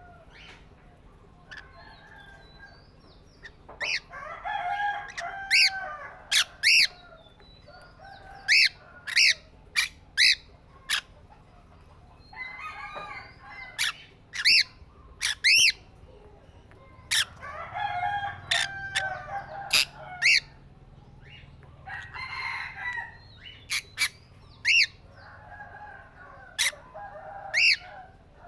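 Pet parrots calling: short, sharp, shrill calls repeated many times, mixed with bouts of busier chattering.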